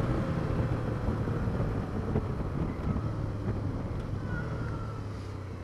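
Suzuki V-Strom motorcycle running steadily on the road, its engine hum mixed with wind rush on the microphone, growing a little quieter near the end.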